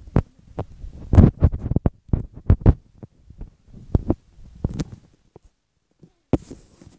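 Irregular series of thumps, knocks and rubs from a phone being handled, its microphone knocked by fingers and clothing; the densest run comes in the first few seconds, with a last knock and a rustle near the end.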